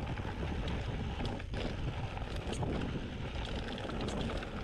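Wind buffeting the rider's camera microphone over the rumble and rattle of a 27.5-inch Specialized Stumpjumper mountain bike rolling fast down a rocky dirt trail, with scattered sharp clicks from stones and the bike.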